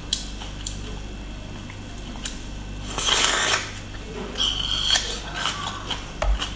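Close-up eating sounds of a bamboo shoot: a crisp, crunchy bite about three seconds in, followed by chewing with small crackles and clicks.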